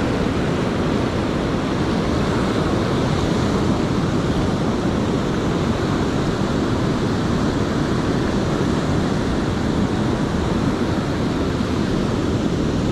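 Ocean surf breaking offshore and washing up over a flat sandy beach: a steady, unbroken rush of waves.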